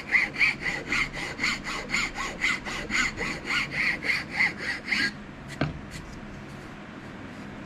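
Triangle file rasping grooves into a knife handle clamped in a vise: quick, short, even strokes, about four a second. The filing stops about five seconds in, followed by a light knock.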